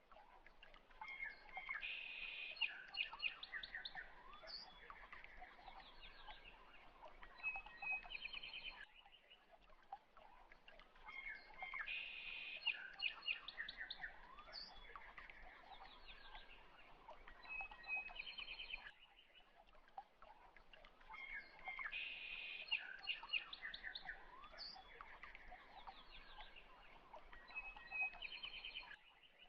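Birdsong, high chirps and quick trills over a faint hiss, in a short recording that loops about every ten seconds.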